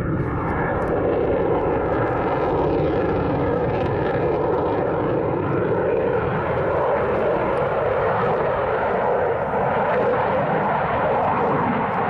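Eurofighter Typhoon's twin EJ200 turbofan engines heard from the ground as steady, loud jet noise, with a faint whine easing down in pitch over the first few seconds.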